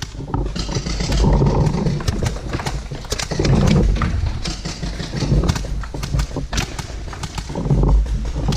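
Footsteps of boots on a concrete floor: a run of sharp clicks and dull thuds.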